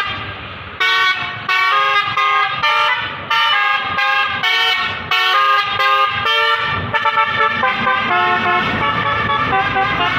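Telolet basuri musical horn playing a quick tune of short notes that change pitch several times a second. From about seven seconds in, the notes run together and overlap.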